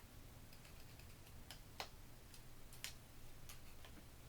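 Faint, irregular small clicks of hard plastic parts being handled as the cordless ratchet's gray plastic collar is worked off.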